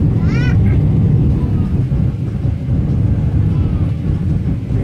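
Steady low rumble of an airliner's engines and rushing air, heard inside the passenger cabin on final approach, with a brief voice about half a second in.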